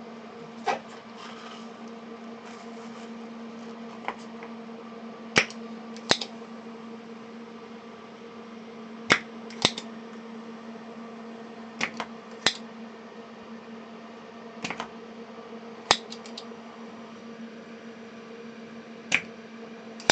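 Sharp clicks and taps of tools on a circuit board, about ten spread irregularly, while diodes are being desoldered from a power supply board, over a steady electrical hum.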